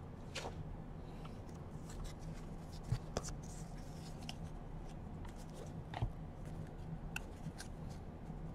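Faint soft clicks and rustles of 2017 Donruss baseball cards being slid one at a time off a stack in the hands, over a low steady hum.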